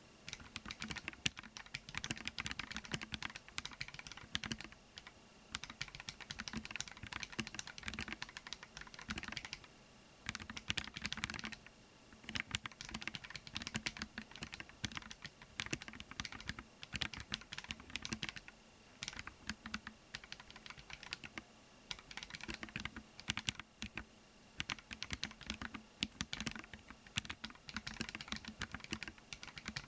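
Kinoya Mokulate keyboard being typed on at a steady fast pace, a dense run of key clicks broken every few seconds by short pauses.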